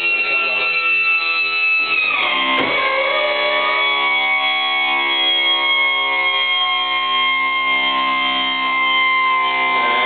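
Background music: sustained keyboard chords, shifting to a new chord about two seconds in.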